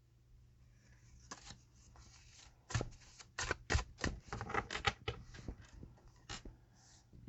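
Tarot cards being shuffled and laid out on a table: faint rustling, then from about three seconds in a quick run of sharp card snaps and slaps.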